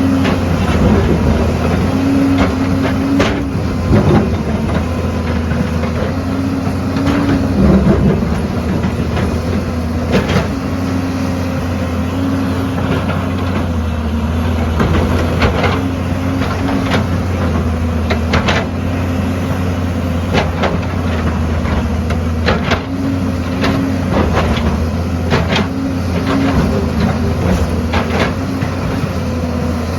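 Heavy diesel engine of an excavator running steadily, with frequent short metallic clanks and knocks from the machine at work.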